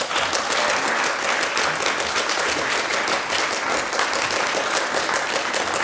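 An audience applauding, a steady mass of clapping.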